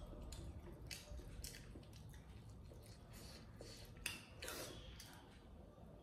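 Scattered soft clicks and taps of chopsticks picking up a steamed momo from the plate, with faint mouth sounds of eating near the end.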